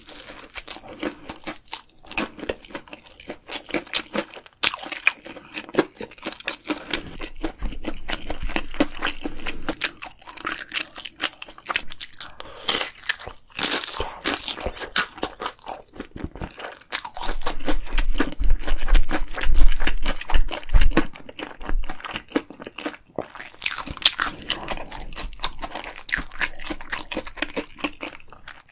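Close-miked eating sounds: crunching bites into fried food and wet chewing of spicy tteokbokki, a steady run of crackles and mouth clicks. The heaviest crunching comes about two-thirds of the way through.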